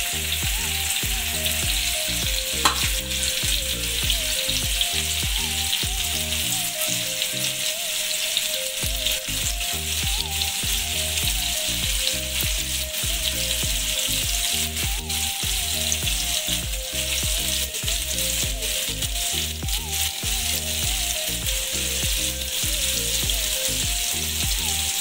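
Paneer cubes frying in desi ghee in a shallow frying pan over a low gas flame, a steady sizzle. One sharp tap comes about three seconds in.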